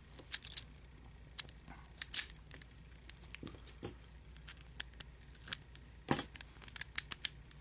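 Scattered, irregular small metallic clicks and taps from handling a just-picked padlock and lock picks.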